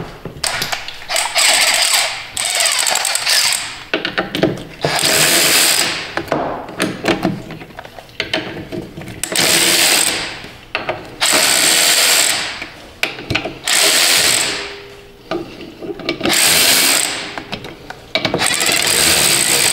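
Cordless power driver with a socket extension spinning out the bolts of an excavator's hydraulic filter cover, running in short bursts of a second or two, about seven times.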